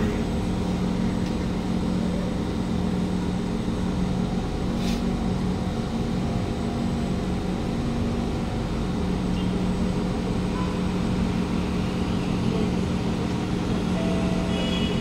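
Steady mechanical hum with several steady low tones, and a brief hiss about five seconds in.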